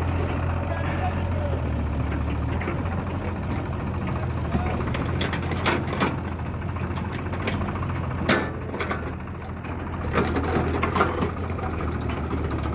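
Heavy diesel vehicle engine running steadily with a low hum, with several sharp clanks, the loudest about eight seconds in and a quick cluster near the end.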